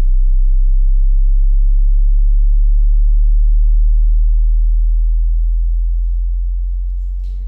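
A loud, steady, very deep bass tone, a nearly pure low hum, that slowly fades over the last few seconds.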